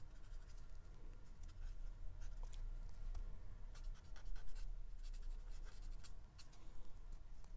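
Alcohol marker tip scratching and dabbing on paper in many quick, short, irregular strokes, over a low steady hum.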